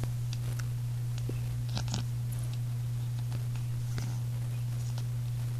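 A steady low hum with a few faint, scattered clicks and rustles as a chihuahua puppy shifts about on its bedding in a wire crate.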